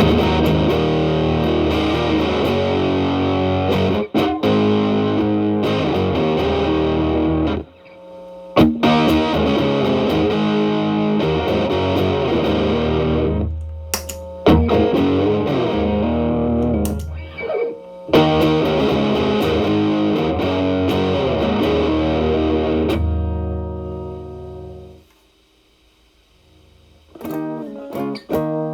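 Telecaster electric guitar played through an E.W.S. Brute Drive (BD-1) distortion pedal at a gain of 3 into a Marshall Valvestate amp's clean channel: overdriven chords and riffs with brief pauses. Near the end the playing stops for about two seconds, then comes back as thinner, cleaner picked notes.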